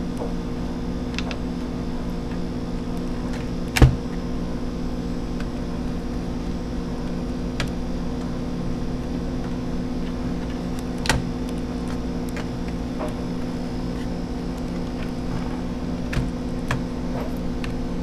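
Plastic snap clips of a laptop's palm rest clicking as it is pried up by hand, a few sharp clicks with the loudest about four seconds in and another about eleven seconds in. Under them runs a steady droning hum.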